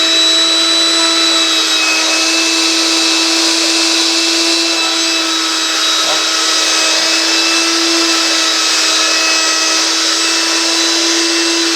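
Blender motor base, rigged as a homemade fan, running at full speed: a steady, high motor whine over a rushing noise.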